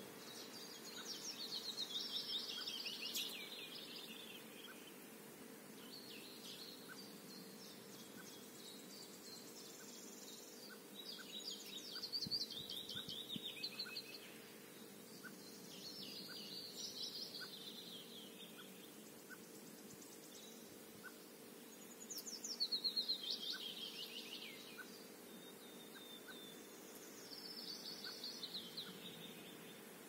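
A songbird singing a short phrase of fast notes that falls in pitch, repeated every few seconds, with a faint steady hum underneath.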